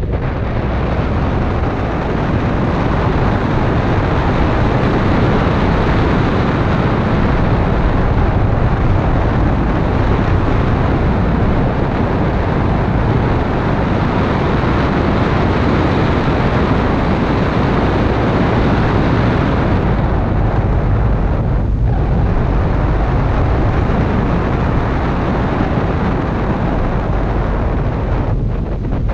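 Steady rush of wind on an outside-mounted camera's microphone, mixed with tyre and road noise from a second-generation Toyota MR2 driving along; the rush briefly thins twice near the end.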